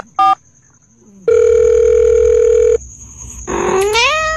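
Telephone sound effects: one last keypad dialing beep, then a steady telephone tone lasting about a second and a half. Near the end a cat meows once, its pitch rising then falling.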